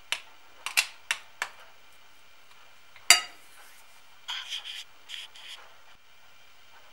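Several sharp clicks and taps against a glass jar, the loudest about three seconds in, then a metal twist-off lid rasping on the jar's glass threads as it is screwed shut.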